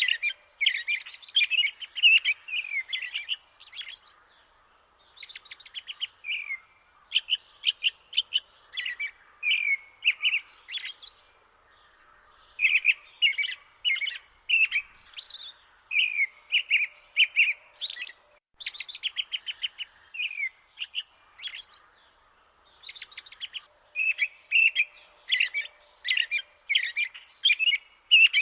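Songbirds singing: repeated phrases of rapid, high chirps and whistles with short pauses between them.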